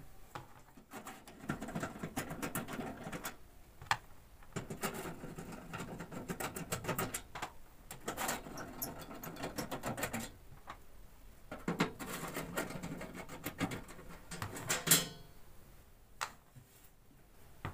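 Screws being turned out of the metal cover of a Havells 100 A busbar chamber: repeated squeaky clicks and scraping from the screws and the screwdriver, with a louder clack near the end.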